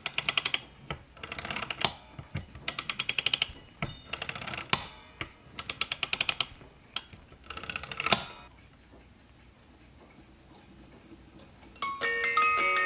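Antique clock mechanism clicking rapidly in six short bursts, like a ratchet, about every second and a half, then falling quiet. About a second before the end, the clock's bell chime starts ringing.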